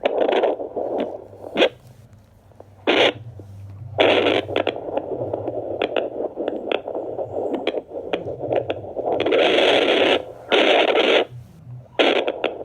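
Handheld fetal Doppler's speaker giving loud static hiss and crackle as the probe is moved over a pregnant dog's belly, in stretches that cut in and out abruptly.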